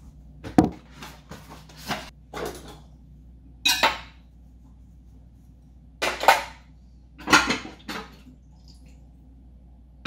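Dishes clinking and clattering as they are handled and put down, in a series of short, irregular knocks and scrapes.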